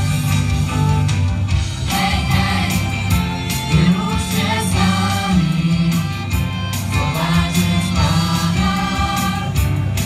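Choir singing an upbeat Christian song with a live band, heard through PA loudspeakers, with a prominent bass line underneath.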